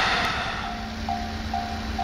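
The rumble of a passing electric train fades out in the first half-second. A Japanese level-crossing warning bell then starts ringing, a two-tone electronic clang repeating about twice a second, over a faint low hum.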